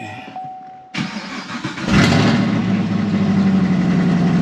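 2018 Chevrolet Camaro ZL1's supercharged 6.2-litre LT4 V8 cranked by the starter and catching about two seconds in with a loud flare, then settling into a steady idle on its newly fitted battery. A car warning chime sounds just before the cranking begins.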